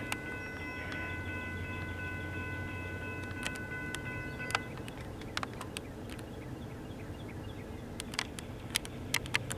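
Grade-crossing warning bell ringing steadily, cutting off about four and a half seconds in, over the low steady rumble of approaching diesel freight locomotives, with scattered sharp clicks.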